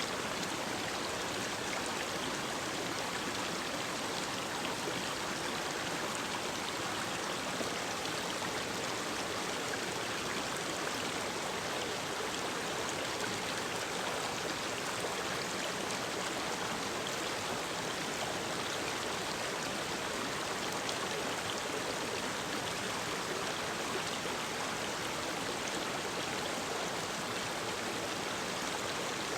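Mountain stream running, a steady, unbroken rush of water.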